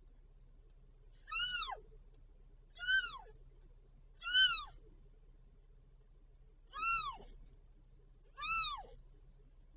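Newborn kitten mewing: five short, thin, high cries, each rising then falling in pitch, coming about every second and a half with a longer pause midway.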